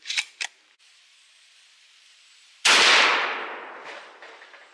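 Two quick clicks as the pump-action shotgun is handled, then, about two and a half seconds in, a single loud shotgun blast firing 00 buckshot, its report dying away over the next two seconds.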